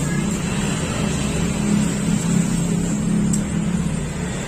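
A steady low motor hum under a wash of noise.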